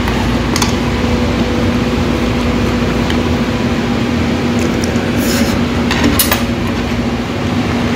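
A steady mechanical hum with a constant low tone, with a few short clinks of a spoon against a stainless-steel rice bowl, the brightest around five and six seconds in.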